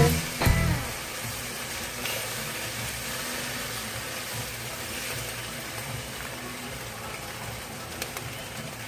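Bacon frying in a pan: a steady sizzle.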